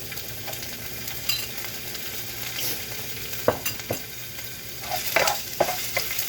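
Garlic and sliced ginger sizzling in a little oil in a frying pan. A spatula is stirring them, scraping and clicking against the pan a couple of times past the middle and often near the end.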